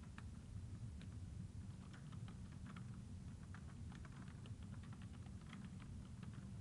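Faint typing on a computer keyboard: a quick, irregular run of key clicks over a low, steady hum.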